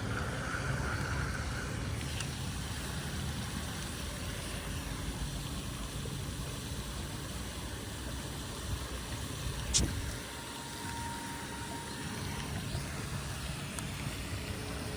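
Steady low engine rumble, with one sharp click about ten seconds in.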